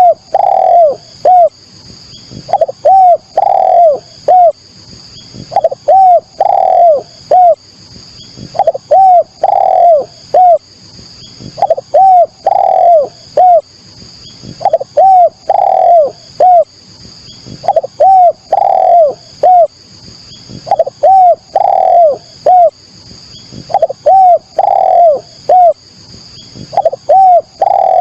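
Spotted dove (derkuku, tekukur) cooing as a lure call: a phrase of three or four low coos, the middle coo longest and loudest, repeated about every three seconds. A faint steady high whine sits between the phrases.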